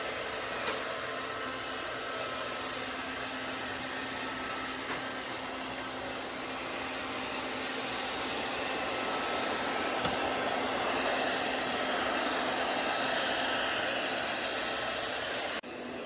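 Robot vacuum cleaner running, its suction motor giving a steady whirring hiss with a faint hum underneath. It grows a little louder partway through, with a couple of faint clicks.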